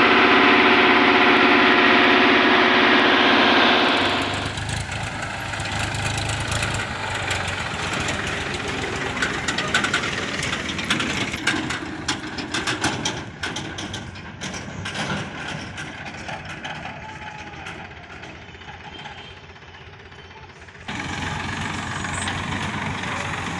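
Diesel tractor engine running, loud and high-revving for the first few seconds, then quieter as the tractor hauls its trolley. A run of sharp knocks and rattles comes in the middle. After a sudden cut near the end the engine runs steadily.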